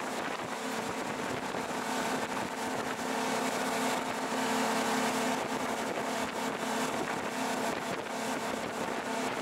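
Small fishing boat's engine running at speed, a steady drone with a few even tones, over the rush of water churned up by the boat's wake.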